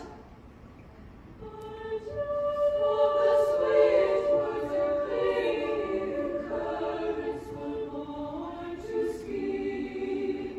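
Women's choir singing held chords in harmony: soft at first, swelling about two seconds in, and stopping near the end.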